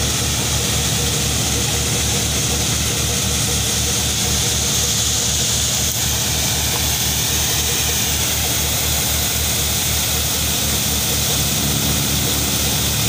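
Tractor-driven Power King wheat thresher running steadily as crop is fed into it, the tractor engine keeping a steady low beat under the machine's noise.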